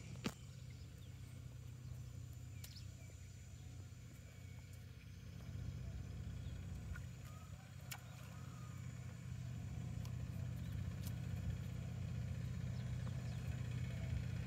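A motor engine running steadily, a low hum that grows louder from about five seconds in and again near ten seconds, with a few faint clicks.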